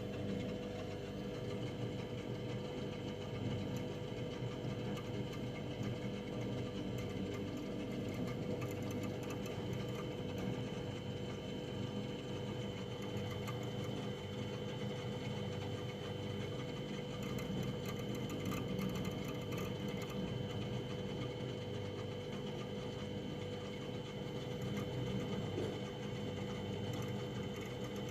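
Household freezer running: a steady mechanical hum with a constant higher tone over it, unchanging throughout.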